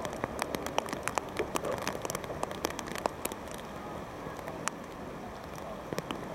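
Rain falling close to the microphone: many irregular sharp ticks of drops over a steady hiss.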